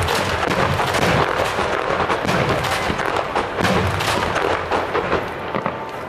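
Fireworks star mine firing in a fan-shaped barrage: a dense run of overlapping bangs and booms that thins out near the end.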